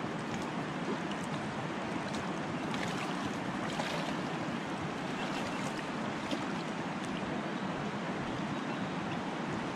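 Steady rush of flowing river water, with a few small splashes and ticks from legs wading through the current, the clearest about four seconds in.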